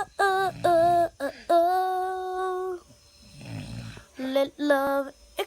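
A child singing several long held notes without clear words. In a pause a little past halfway, a person snores softly in the background.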